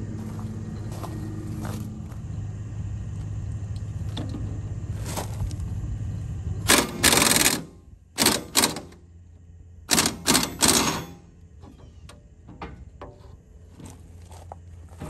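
Impact wrench rattling in about six short bursts, in pairs, loosening bolts on a rotary cutter, from about halfway through. Before the bursts an engine runs steadily underneath.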